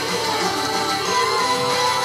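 Upbeat idol pop song, a guitar-backed track with sung vocals, playing through a stage PA.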